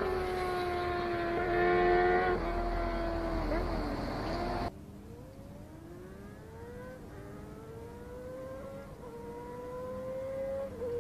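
Motorcycle engine and exhaust running loud just after passing, its note holding then wavering, then cut off abruptly about four and a half seconds in. After that a quieter, more distant motorcycle accelerates through the gears, its pitch rising and then dropping at each upshift, three times.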